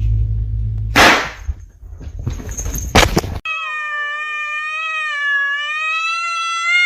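Two loud sharp clanks about two seconds apart over a low hum, then a cat gives one long, drawn-out meow that holds its pitch and drops at the end.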